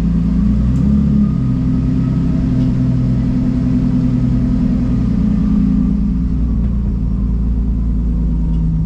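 Car engine running at moderate, fairly steady revs, its pitch rising a little about a second in and easing back around six seconds.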